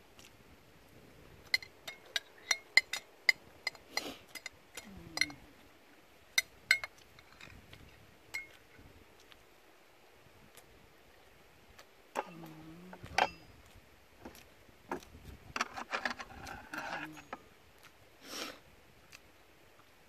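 A metal spoon tapping and scraping against a clear food container while eating. There is a quick run of sharp clinks about one to three and a half seconds in, then scattered ones later.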